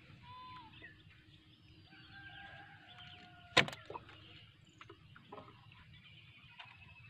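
A fishing longline being handled in a wooden canoe: a few soft clicks and one sharp knock a little past halfway through. Faint bird chirps sound in the background.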